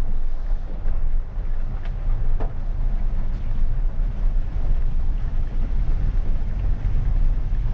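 Maruti Suzuki Ignis creeping along in first gear, heard from inside the cabin: a steady low rumble of engine and tyres on a wet, rough track. A couple of faint knocks come about two seconds in.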